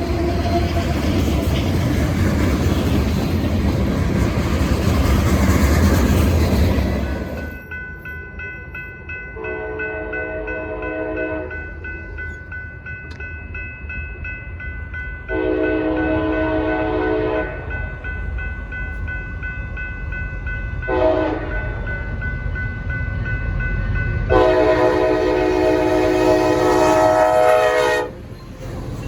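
A passing freight train rumbles loudly for about seven seconds before cutting off abruptly. Then a diesel locomotive's multi-chime air horn sounds the grade-crossing signal: long, long, short, long, with the last blast the loudest.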